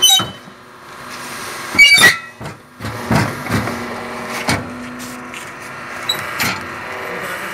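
Fly ash brick making machine running with a steady hum, with sharp metal clanks and knocks as the steel pallet of freshly pressed bricks is pulled out along its rails. The loudest is a ringing clang about two seconds in.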